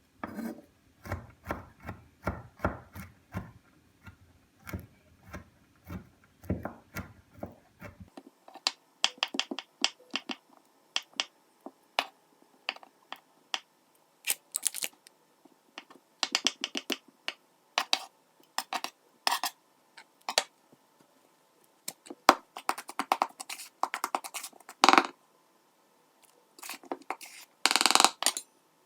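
Kitchen utensils and a mixing bowl being handled in scone preparation: a run of quick clicks, taps and light scrapes, busiest near the end.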